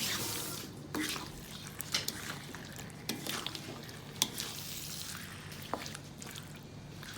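Chicken pieces cooking in oil and spice paste in a non-stick wok: a steady sizzle with scattered pops and clicks.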